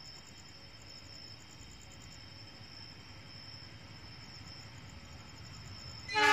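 Crickets chirping in a steady pulsing high trill while the low rumble of an approaching train slowly grows. At the very end the locomotive's horn blasts loudly.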